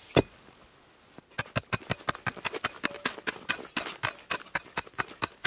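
A pick strikes soft, easily broken rock once, then after about a second comes a fast, regular run of sharp pick strikes and clattering rock chips, about five a second.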